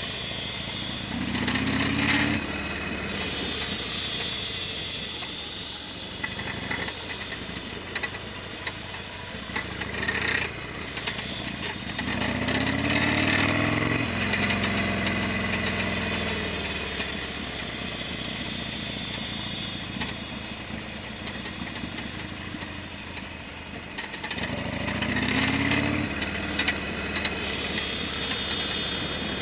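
Harley-Davidson XL1200R Sportster V-twin engine running on the road, its pitch rising three times as the bike accelerates under power, with a few short clicks between.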